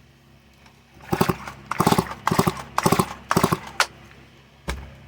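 A run of about six or seven hard clacking knocks with a brief ring, as tools or metal parts are handled and set down, then one more knock near the end.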